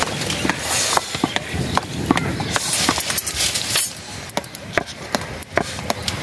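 A metal ladle stirring and scraping stiff dhido in a metal pot, with many irregular clicks and knocks of the ladle against the pot and short scraping strokes.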